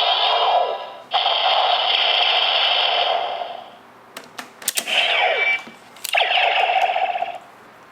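Bandai DX Neo Decade Driver toy belt playing its electronic Final Attack Ride sound effects through its small speaker: a long synthesized tone for the first few seconds, a few sharp clicks about four and a half seconds in, a falling glide, then another synthesized tone near the end.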